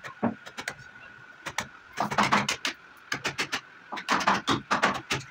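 Bursts of rapid sharp clicks and knocks, each under a second long, from hand tools working on a wooden door's hinge fittings, over a faint steady high tone.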